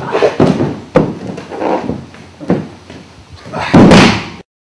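Aikido throw on a wooden dojo floor: a series of thuds and scuffs from bare feet and bodies. The loudest is the heavy thud of the thrown partner's breakfall near the end, after which the sound cuts off suddenly.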